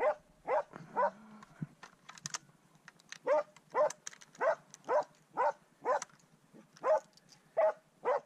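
Norwegian elkhound baying at a wild boar: a long run of separate barks at a steady pitch, about one and a half a second, with a short break a second or so in.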